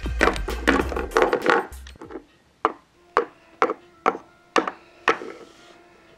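Plastic Littlest Pet Shop figurines being hopped along a wooden floor by hand, knocking on the boards about twice a second, over background music.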